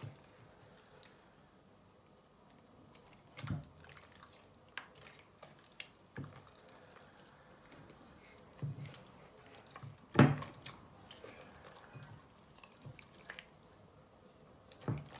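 Sticky homemade slime squelching and popping as hands knead it and pull it apart in a bowl, in scattered wet clicks, with one louder pop about ten seconds in. The slime is still very sticky, not yet fully activated.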